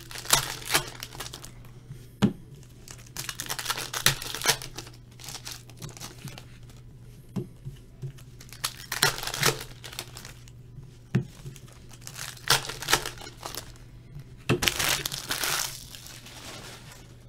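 Plastic trading-card pack wrapper being torn open and crinkled, with irregular crinkles and small clicks as the cards are handled and laid down on the table mat. The longest crinkling comes near the end.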